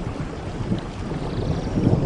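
Rainforest thunderstorm: steady rain with a low rolling rumble of thunder that swells toward the end.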